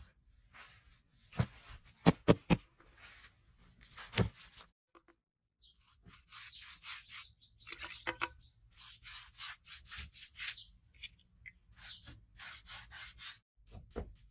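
A few sharp knocks and some rustling, then from about six seconds in a wooden stick scraping round the inside of a clay pot as it stirs a thick red mix, in quick repeated strokes about two a second.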